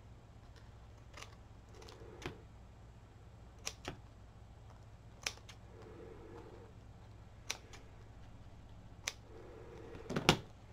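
A decoupaged paper bag being handled and turned over: a few light, sharp clicks a second or two apart, with soft paper rustles between them and the loudest click near the end.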